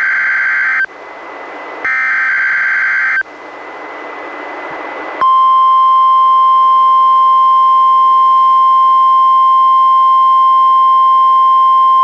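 NOAA Weather Radio test received on a Reecom R-1630 weather radio: two SAME digital header bursts, each a buzzing data tone about a second and a half long, with radio hiss between them. About five seconds in, the steady 1050 Hz warning alarm tone starts and holds.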